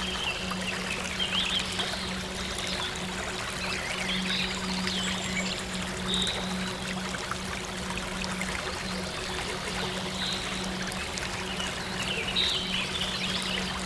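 Water running steadily like a small stream, with short chirping birdcalls coming and going over it and a low steady synth drone underneath.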